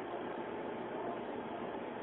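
Steady background noise, an even hiss with no distinct events.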